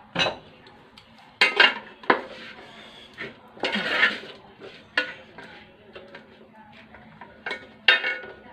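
Wooden spatula stirring a dry, crumbly jackfruit-and-coconut stir-fry in a pot, scraping and knocking against the pot in about seven irregular strokes. The longest scrape comes about four seconds in.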